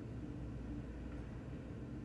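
Quiet room tone: a steady low hum, with no distinct sound event.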